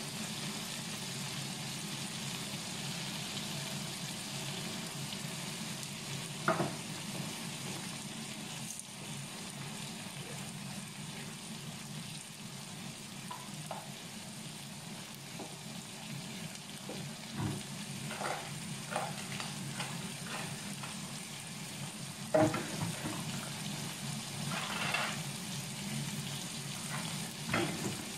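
Sliced onions, cherry tomatoes and garlic sizzling in oil in a frying pan: a steady hiss with occasional sharp pops, the loudest about two-thirds of the way through.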